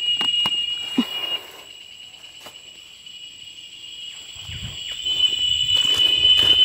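Cicadas in a steady high-pitched drone that drops away about a second and a half in and builds back up after about four seconds, with a few faint clicks.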